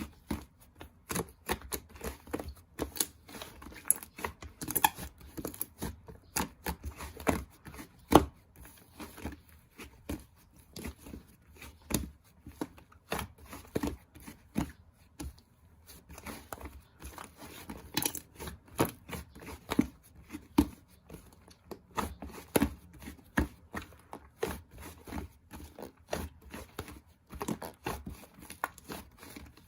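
Hands kneading and pressing slime, giving a dense, irregular run of clicks, crackles and small pops.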